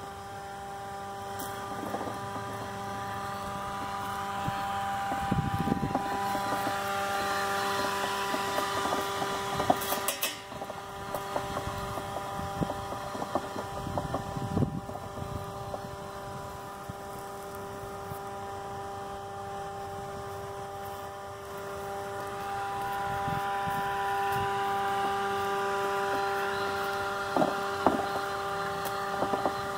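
Ambrogio L300 Elite robotic lawn mower running: a steady electric motor whine with a fixed pitch, swelling and fading as the mower moves, with scattered short crackles and clicks.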